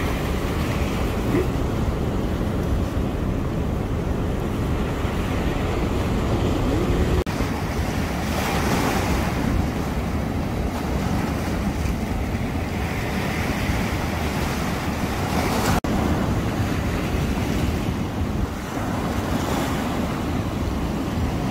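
Sea surf breaking and washing onto the shore, swelling every few seconds as waves come in, with wind buffeting the microphone underneath.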